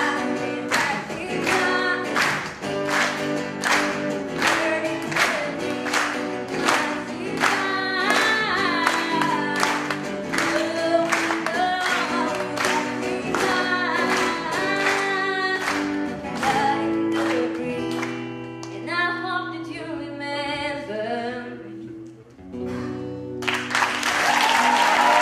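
A live song: a woman sings to a strummed acoustic guitar. Near the end the song finishes on a last strum and the audience breaks into applause.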